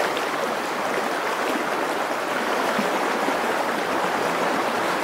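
Fast, shallow river rushing over a stony riffle: a steady, even rush of water.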